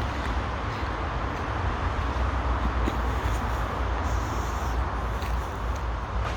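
Steady outdoor background noise: a fluctuating low rumble with a broad hiss over it, without any single distinct event.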